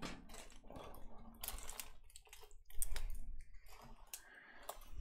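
A large diamond painting canvas in its clear plastic cover being flipped over by hand, the plastic film crinkling and crackling in a rapid, irregular run of clicks. There is a louder handling bump about three seconds in.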